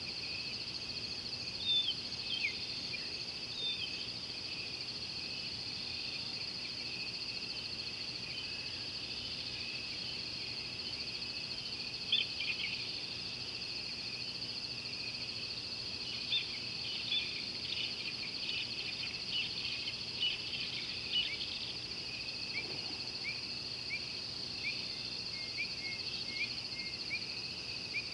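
Steady high-pitched drone of an insect chorus, typical of crickets at dusk, with scattered short falling chirps that come more often in the second half.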